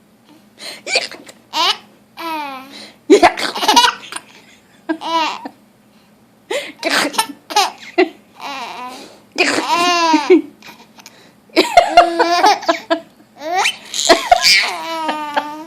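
A baby laughing in repeated high-pitched bursts of giggles and squeals, with short pauses between, set off by his grandmother's hiccups.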